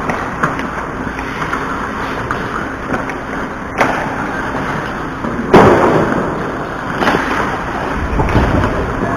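Ice hockey play: a steady rush of noise with wind on the microphone, broken by sharp knocks of sticks and puck, the loudest a bang about five and a half seconds in.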